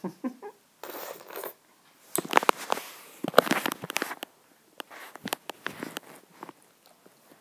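Irregular crinkling and rustling of something being handled, in short crackly bursts with gaps between them.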